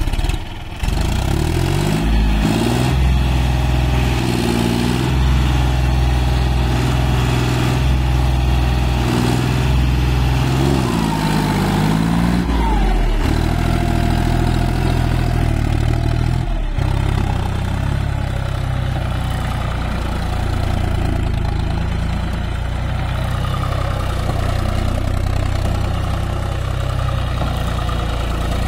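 John Deere tractor's three-cylinder diesel engine running, idling and revving up and down a few times in the first half, then running more evenly after an abrupt change about two-thirds of the way through.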